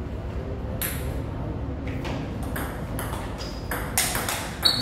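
Table tennis rally: the ball clicking off the paddles and the table in a quick back-and-forth series, starting about a second in and coming faster towards the end.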